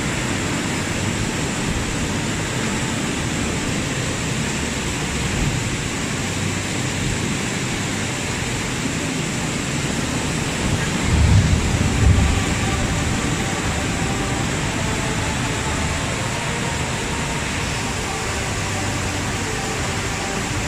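Heavy rain in strong wind: a steady, even hiss of pouring rain, with a louder low rumble of a gust about halfway through.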